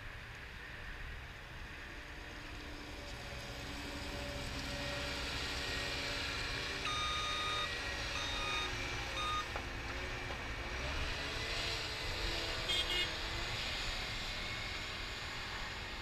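Caterpillar 236D skid steer loader's diesel engine running as the machine drives and manoeuvres, getting louder toward the middle. Its backup alarm beeps a few times about seven to nine seconds in, and there is a short rattle about thirteen seconds in.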